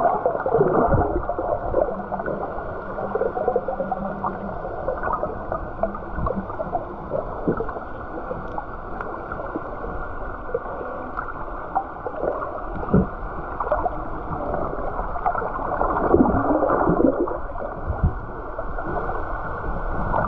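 Underwater sound as picked up by a camera in a housing: muffled water movement and bubbling, with scattered sharp clicks and knocks.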